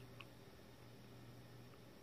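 Near silence: room tone with a faint steady low hum and one faint tick about a quarter second in.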